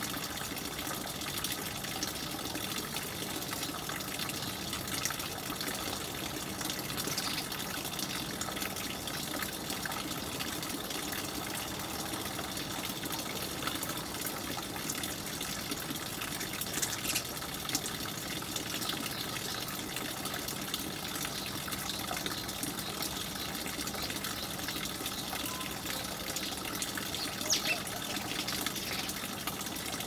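A steady rushing background noise, with a few brief, high chirps from house sparrows scattered through it.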